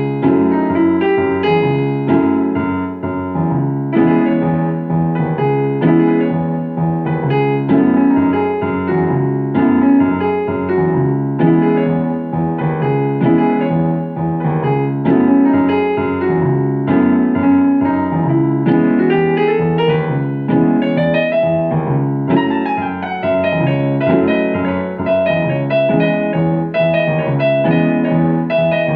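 Solo piano playing a flowing piece: repeating broken chords in the lower-middle range under a melody, with a rising run of notes about two-thirds of the way through.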